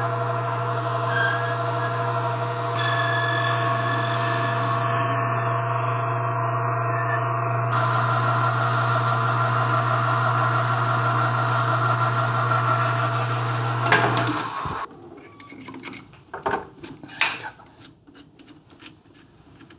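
Metal lathe running with a steady motor hum while the spinning workpiece is turned and then filed by hand. About fourteen seconds in the lathe stops, and light clicks and knocks follow as the part is handled in the chuck.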